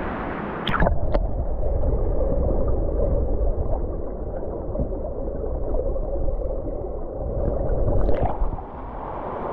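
Rushing river water heard muffled, as if with the microphone under the surface: a heavy low rumble with the treble gone, beginning with a sharp splash just under a second in and ending with another splash at about eight seconds.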